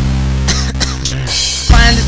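Hip hop music with the drums dropped out, leaving a held bass note. A hiss comes in near the end, and then the beat crashes back in with a heavy hit.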